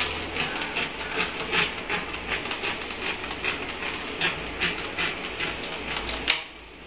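A plastic edge cover being pressed and snapped onto its base channel along a countertop edge: a quick, irregular run of clicks, several a second, over the steady hiss of a tap running into a stainless steel sink. Both cut off sharply near the end.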